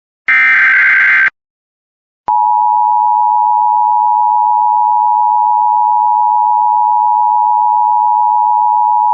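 Emergency Alert System tones. A one-second SAME digital header burst, a rapid warbling screech, plays just after the start. About two seconds in, the steady two-tone EAS attention signal begins and runs on without a break.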